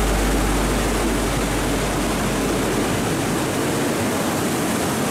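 Ocean surf: a steady rush of breaking waves, with a deep low rumble that fades out about halfway through.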